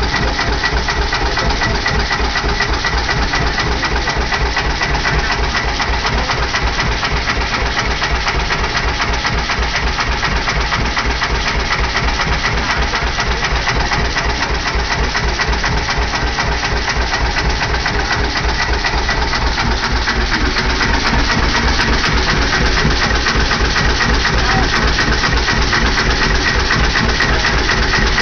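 McCormick-Deering 1½ hp Type M single-cylinder hit-and-miss engine running steadily under load, belted to a pump jack pumping water, with a fast, even, rhythmic clatter. It grows a little louder about two-thirds of the way through.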